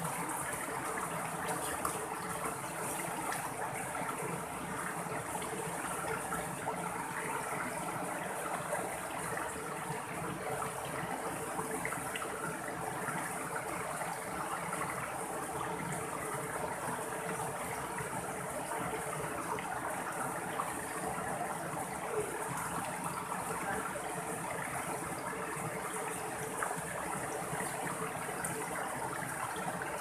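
Shallow mountain stream running over rocks and small cascades: a steady rush of water with gurgling and splashing, unchanging throughout.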